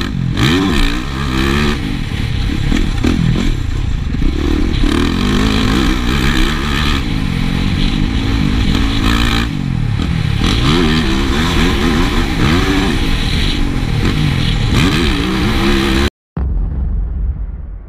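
Yamaha motocross bike's engine at full riding pace, the revs rising and falling again and again as the rider works the throttle and gears. The sound cuts out briefly near the end, then comes back lower and fades.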